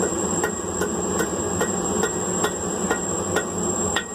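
Blacksmith's hammer striking hot steel on an anvil in a steady rhythm of about two to three blows a second, each with a short metallic ring, rounding over the end of the bar.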